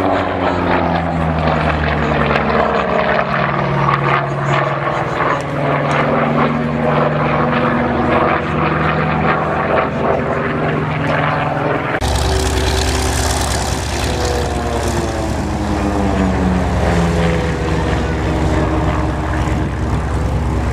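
Propeller aircraft flying a display pass, its piston engine note sliding up and down in pitch as it comes and goes. About halfway through the sound changes abruptly, and a deeper rumble gets stronger.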